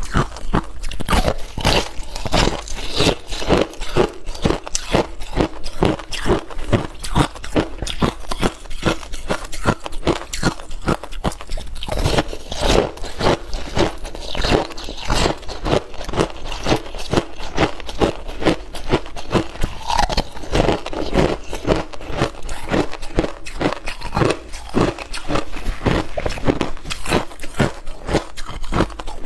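Ice being bitten and chewed: crisp crunches following one another several times a second, with no pause.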